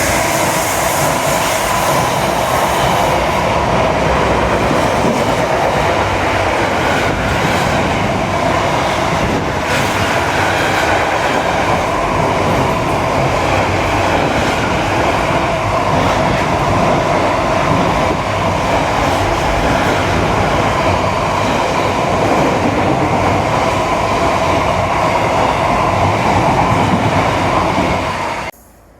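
Train passing close by at speed: a loud, steady rush of wheel and rail noise that cuts off abruptly near the end.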